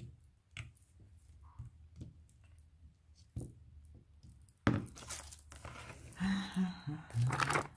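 Faint taps and clicks of small decorations being handled, then about five seconds in a loud crinkling of plastic packaging being handled.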